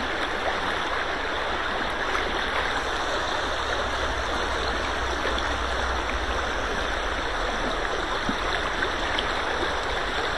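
Shallow river current rushing and rippling close around a wading angler, a steady, even hiss of running water.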